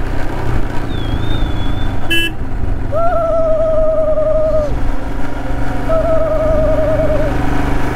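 Royal Enfield Himalayan's single-cylinder engine running steadily as the motorcycle cruises. Over it, the rider sings two long wavering notes, one about three seconds in and one about six seconds in, with a short thin whistle-like tone and a click before them.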